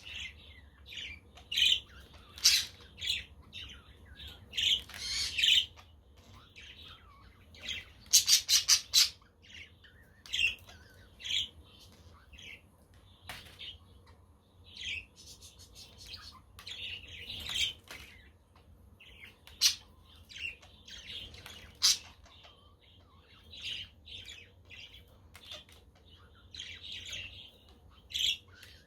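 Budgerigars chirping and chattering in short, scattered calls, with a harsher run of rapid squawks about eight seconds in.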